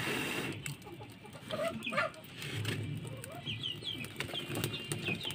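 Chickens clucking, with repeated short high-pitched peeps.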